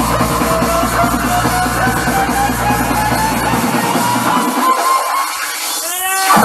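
Loud music with drums and heavy bass. About three and a half seconds in the bass drops away while a rising tone builds, and the full beat comes back right at the end.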